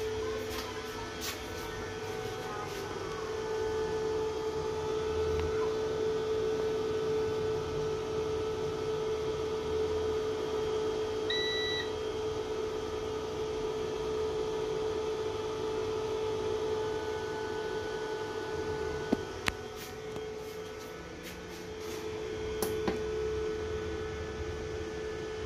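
Low-frequency pure sine wave inverter humming with a steady mid-pitched tone. One short electronic beep about halfway through, and a few sharp clicks near the end.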